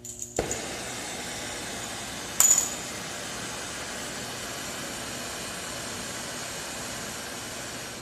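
Gas brazing torch lighting with a pop about a third of a second in, then burning with a steady hiss. A sharp, loud pop about two and a half seconds in, and the flame cuts off near the end: the torch going out, a misfire.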